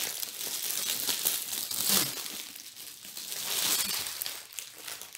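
Clear plastic wrapping crinkling as it is pulled off a small hard-shell storage case, easing off briefly about halfway through.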